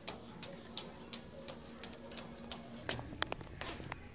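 Footsteps climbing a flight of stairs, an even stepping of about three steps a second, with a few sharper clicks near the end.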